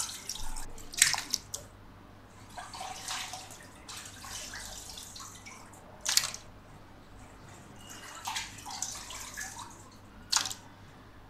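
Water dripping and splashing as washed raw beef chunks are squeezed by hand and lifted out of a pot of water. There are three sharp wet splashes, about 1, 6 and 10 seconds in.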